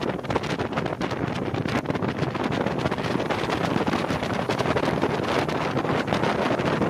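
Wind buffeting the microphone on a rigid-hull inflatable boat under way, over the constant rush of its engine and the water beneath the hull.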